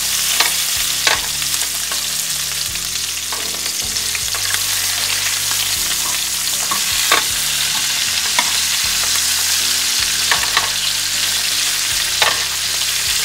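Lobster tails frying in butter and olive oil in a pan, just turned face down: a steady sizzle with scattered sharp pops and crackles.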